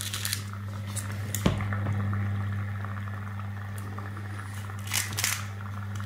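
Electrode water heater humming steadily at a low pitch as mains current passes straight through the salted water it is immersed in, with the power rising as salt lowers the water's resistance. A few short rattles come as salt is shaken into the jar.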